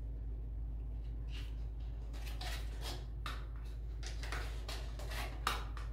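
Plastic toothbrush holder slid and pressed against ceramic wall tiles, a series of short scrapes and taps beginning about a second in, over a low steady hum.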